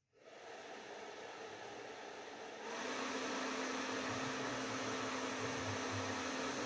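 Hair dryer switched on and blowing a steady rush of air. About two and a half seconds in it steps up louder, and a steady low hum comes in.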